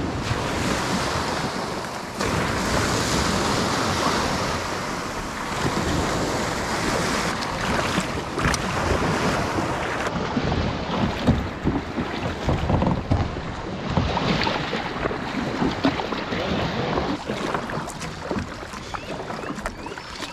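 Small waves washing and breaking at the water's edge, with wind buffeting the microphone.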